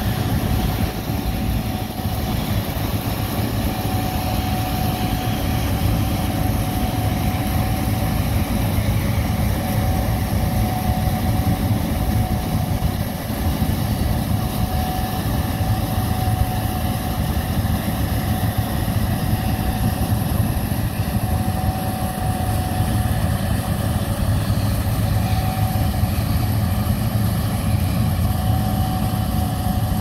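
Gleaner S67 combine running under load as it harvests soybeans: a steady engine and threshing drone with a faint steady whine over it.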